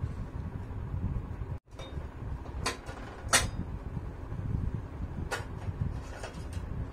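A handful of short, light clicks and knocks from a gas stove's parts being handled, about five in all, spread over the second half, over a low steady background rumble. The sound cuts out for an instant about one and a half seconds in.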